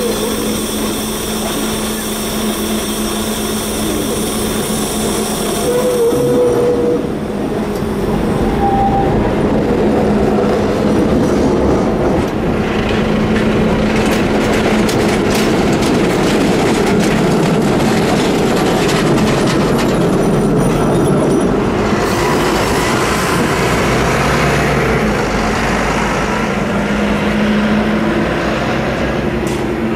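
A Gothenburg M29 tram passing on street rails: steel wheels rumbling, with a run of sharp clicks over rail joints and switches in the middle. A bus engine runs steadily underneath.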